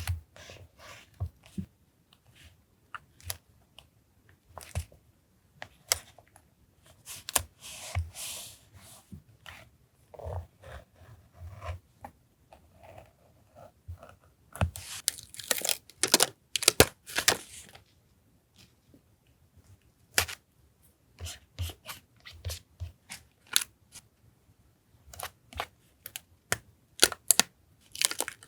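Paper being handled and torn for collage, with short rustles and crinkles and small taps on the desk. There is a denser run of tearing and rustling about halfway through.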